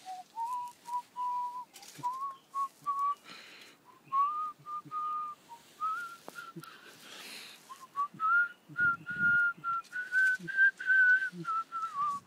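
A person whistling a tune: a string of short held notes that climb gradually higher in pitch, with a few brief knocks and dull thumps of handling.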